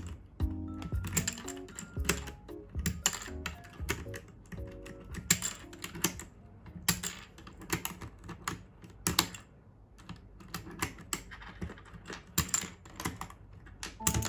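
Irregular plastic clicks and snaps of keycaps being changed on a Royal Kludge RK837 65% mechanical keyboard with brown switches. Soft background music runs beneath.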